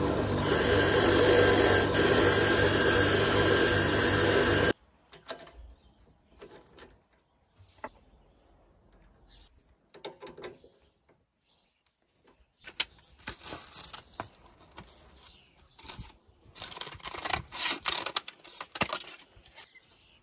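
Bench drill press running with a small polishing wheel in the chuck, a steady motor noise that stops abruptly about five seconds in. Then quiet metallic clicks and rattles as the chuck is loosened with a chuck key and the wheel is taken out.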